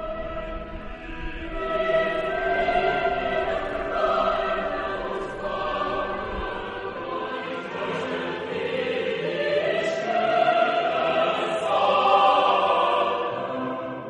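Choral music: a choir singing long held notes in slow phrases that swell and fade.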